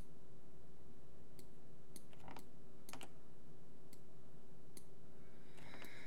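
Scattered computer mouse and keyboard clicks, about six spread over a few seconds, over a faint steady hum.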